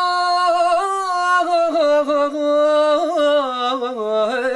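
A man singing solo into a studio microphone: a long held high note, then a wordless, ornamented melisma of quick turns that winds gradually down in pitch.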